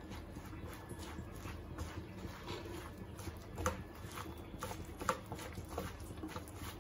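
A hand squeezing and mixing wet gram-flour batter with sliced onion and potato in a steel bowl: faint irregular squelches and clicks, with two sharper clicks about three and a half and five seconds in.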